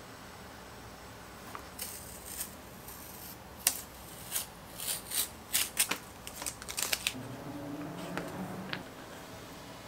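Utility knife cutting through a strip of vegetable-tanned leather on a cutting mat: after a quiet start, a quick series of short, sharp slicing and scraping strokes, followed by softer handling of the leather.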